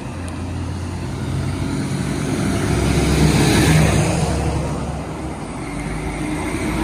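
An articulated lorry driving past close by. Its diesel engine and tyre noise build to a peak about halfway through, then fade, and a second lorry can be heard approaching near the end.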